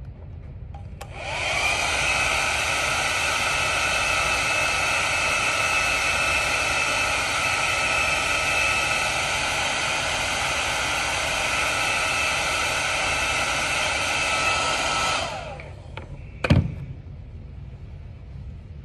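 Hand-held hair dryer switched on about a second in, spinning up and then blowing steadily with a whine, to speed the drying of liquid latex on crepe hair. It is switched off a few seconds before the end and winds down, followed by a single sharp knock.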